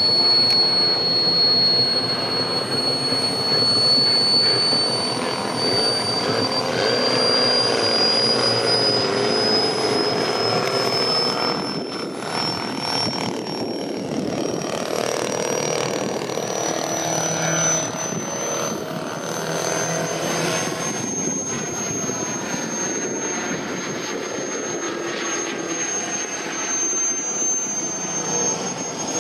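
Four-stroke boxer engine of a clipped-wing Cub RC model airplane running in flight, its drone swelling and fading a little as the plane moves across the sky. A thin high whistle runs over it, slowly rising in pitch.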